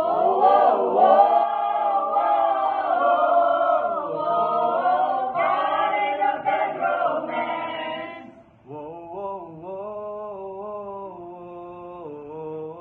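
A mixed group of men and women singing together unaccompanied, loud. A little after eight seconds in they stop and one man's voice carries on alone, quieter, in long held notes.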